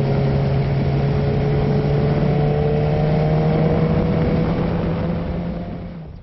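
Motorcycle engine running at a steady pace under way, with wind and road noise over it; its pitch creeps up slightly, then the sound fades away near the end.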